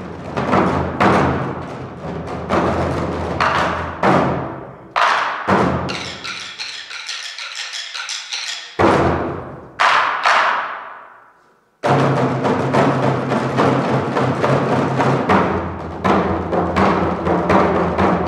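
Drum music for a dance piece: quick drum strikes over a low held tone. About five seconds in, a few heavy single strikes are left to ring, with a brief rattle between them. The sound dies away to silence just before twelve seconds, then the fast drumming starts again.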